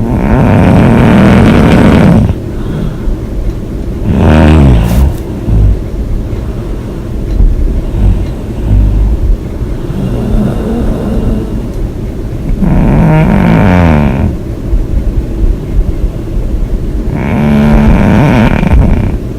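A woman snoring loudly and rhythmically: about five heavy snores roughly four seconds apart, each lasting one to two seconds, with a rattling quality.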